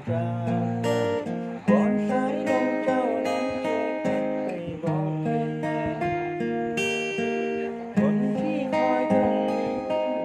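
Acoustic guitar music: strummed chords that change every second or so.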